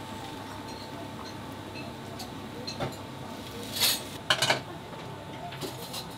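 Dishes and utensils clinking and knocking in a restaurant kitchen, over a steady background hum. There are a few scattered clicks, a louder clatter just before four seconds in, and a quick run of knocks right after it.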